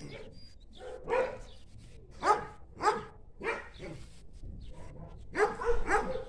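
A dog barking: single barks about a second apart, then a quicker run of three near the end.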